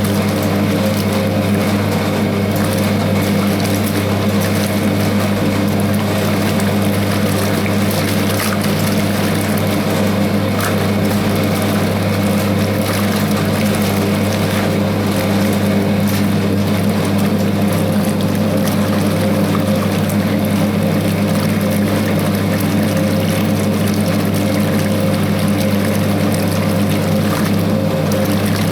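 1960s Hoover 0321 wringer washing machine running, its electric motor giving a steady hum while the wash churns in the water.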